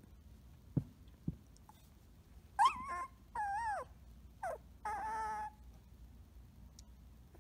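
Young Samoyed puppy whining: four short, high cries in quick succession, one rising, one sliding down, a brief one dropping, and a last one held a little longer.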